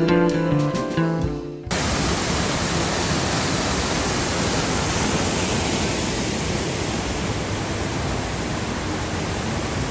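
Guitar music for about the first second and a half, then a sudden switch to the steady, even rush of a waterfall.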